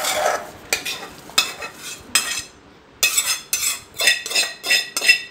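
A spoon stirring and knocking against a bowl as the dry rava laddu mix of ground semolina, powdered sugar and roasted cashews is mixed. The knocks come unevenly at first, then about three a second from about three seconds in, each with a short ringing edge.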